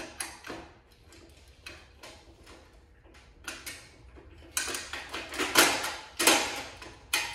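Metal work support being slid into the end of a DeWalt heavy-duty miter saw stand's beam: a few light clicks, then from about halfway a run of louder metal-on-metal scraping and clunks, like a drawer sliding on its runners.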